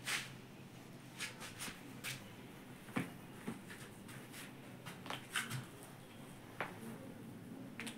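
Faint rustling with about a dozen short, scattered clicks and taps: hands and clothing moving against the patient during a chiropractic adjustment.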